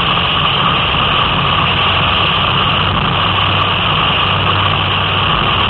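Steady cabin noise of a car driving on a wet road: a low engine hum under even road noise, with no change through the stretch.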